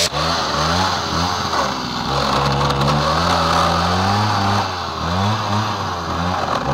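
Two-stroke chainsaw fitted with a Log Wizard planer head, running under load as it shaves out the inside of a Douglas fir log; the engine's pitch rises and falls as the cutter bites into the wood.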